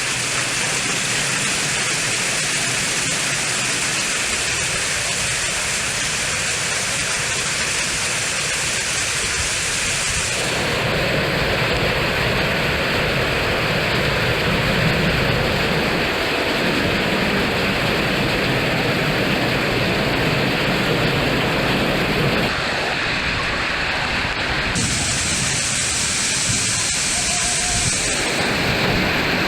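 Summer thunderstorm: strong storm wind with rain, a loud, steady rushing noise.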